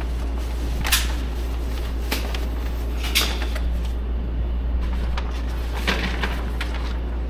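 Several sharp gunshot reports at irregular intervals, two of them, about one and three seconds in, louder than the rest, over a steady low hum at a shooting range.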